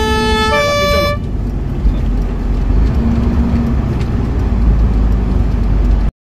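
Fire truck's two-tone warning siren giving a low note then a high note, stopping about a second in. The truck's engine and road rumble are heard inside the cab after that, until the sound cuts off abruptly near the end.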